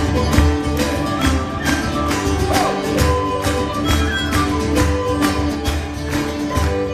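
Live Celtic folk tune on fiddle, whistle and acoustic guitar over a steady cajón beat.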